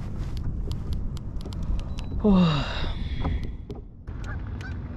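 Geese honking: one loud, falling honk about two seconds in, then a run of short, quick calls from several birds near the end. A steady low rumble and scattered light ticks run underneath.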